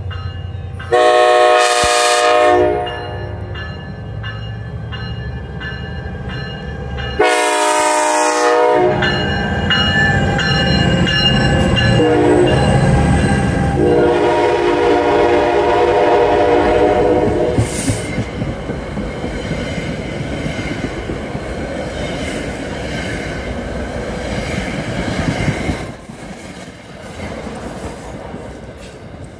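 Train horn sounding the grade-crossing signal: two long blasts, a short one, then a long one. After it the train keeps running past, and its noise drops off near the end.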